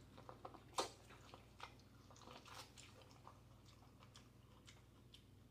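Faint biting and chewing of buttered corn on the cob: soft wet mouth clicks, with one sharper click just under a second in.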